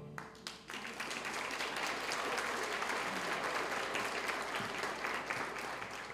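Audience applauding, a crowd of hand claps that swells about a second in and dies away near the end.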